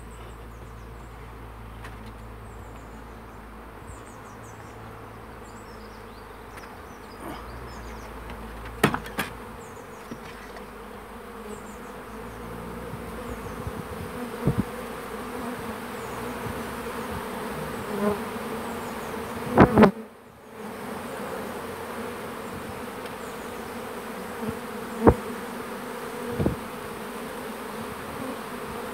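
A honeybee swarm buzzing, the steady hum of many bees flying in and settling at a bait hive, louder from about midway. A few sharp knocks stand out, the loudest a double knock about two-thirds through.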